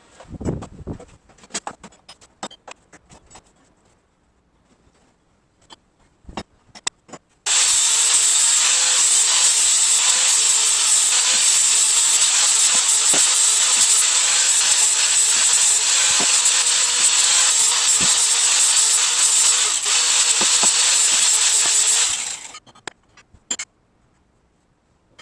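A power tool runs steadily for about fifteen seconds, switching on abruptly and stopping quickly. Scattered clicks and knocks of handling come before and after it.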